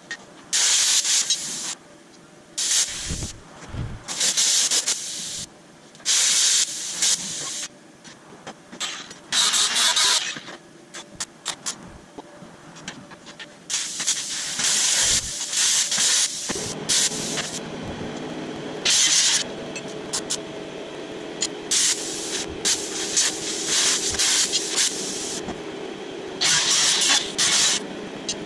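Plasma cutter hissing in repeated bursts of one to two seconds as the torch is triggered on and off to cut the steel bumper. From a little past halfway, a steady lower hum runs under the bursts.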